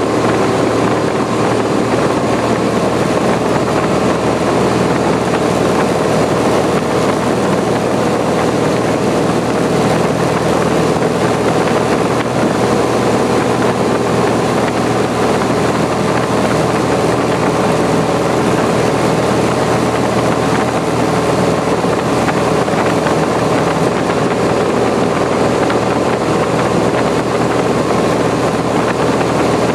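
Cessna 170A's six-cylinder Continental engine and propeller running steadily in flight, heard from inside the cabin.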